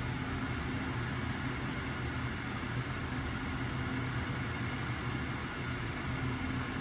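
Steady mechanical whir and hum of an induction hob running under a saucepan of simmering broth, with an even hiss over a low hum.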